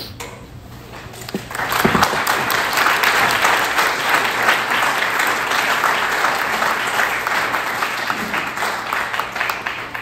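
Audience applauding, with many hands clapping, starting about one and a half seconds in and holding steady.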